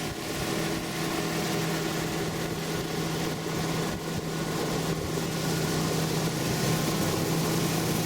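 Motorboat's outboard motor running steadily at an even pitch.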